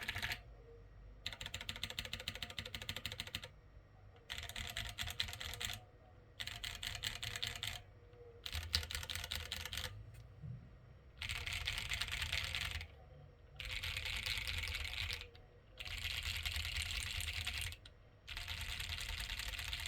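Plateless Duality mechanical keyboard with TKC Dragonfruit light tactile switches and PBT keycaps being typed on in bursts of about a second and a half with short pauses between. The switches give a fuller sound that partly covers the board's hollowness, which the owner finds somewhat dull.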